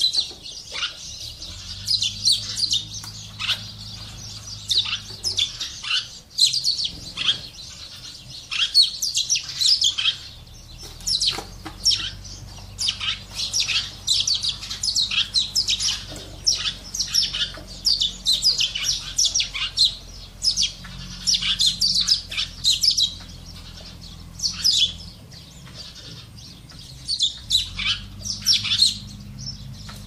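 Sparrows chirping: a busy, near-continuous run of short, high chirps, with brief pauses.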